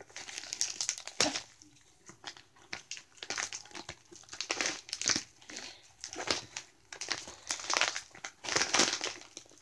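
Packaging crinkling and rustling in irregular bursts as a package is opened by hand.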